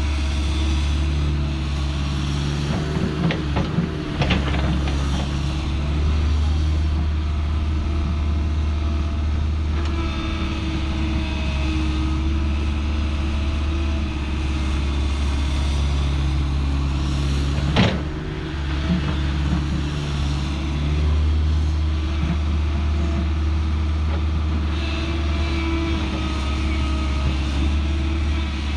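Excavator's diesel engine running steadily under hydraulic load while digging, its pitch shifting as the load comes and goes, with clanks of the bucket about three to four seconds in and one sharp knock about two-thirds of the way through.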